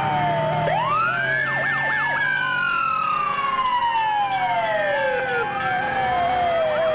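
Several fire-apparatus sirens sounding at once. One winds up steeply about a second in and then slowly falls away over the next few seconds, over quicker repeating up-and-down sweeps from other sirens.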